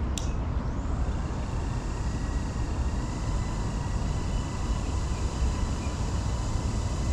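Steady outdoor rumble on a GoPro microphone, mostly low and uneven like wind buffeting the mic, with faint steady tones above it. A short high chirp sounds right at the start.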